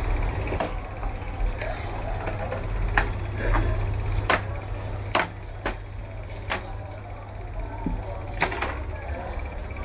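About a dozen sharp, irregular clicks and taps of hard objects over a steady low hum.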